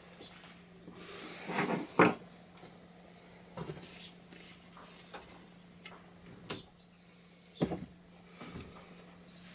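A handful of sharp knocks and clicks with some rustling as objects are handled and set down, over a faint steady hum.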